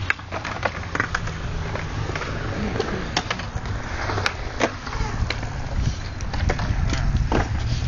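BMX bike tyres rolling on a concrete skatepark surface, a steady low rumble with scattered sharp clicks and knocks from the bikes.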